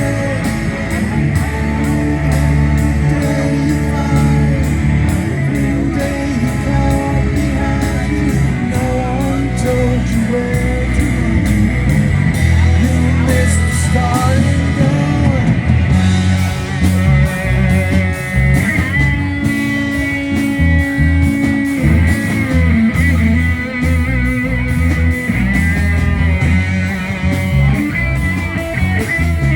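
Rock music without vocals: electric guitar over a steady drum beat.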